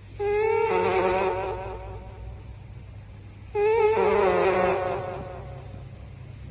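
A puppy howling: two long, wavering calls, the second starting about three and a half seconds in.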